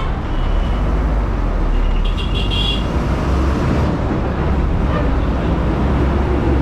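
City bus engine running and road noise, heard from inside the moving bus, with a brief high-pitched tone about two seconds in.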